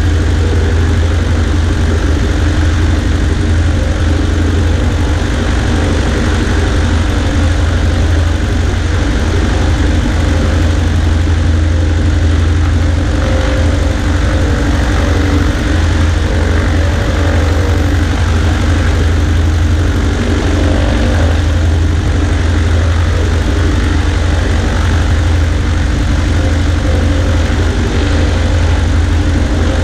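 Cessna 140A's piston engine and propeller running steadily: a constant low drone with a hiss of rushing air over it.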